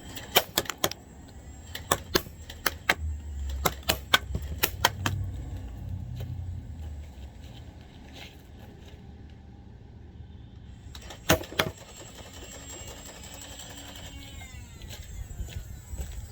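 Sharp plastic clicks of a Nerf blaster being primed and fired, about a dozen in quick succession over the first five seconds, then two more about eleven seconds in.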